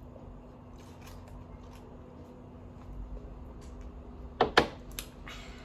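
Quiet eating sounds: faint clicks and rustling of food packaging over a steady low hum, with one short, sharp, much louder sound about four and a half seconds in.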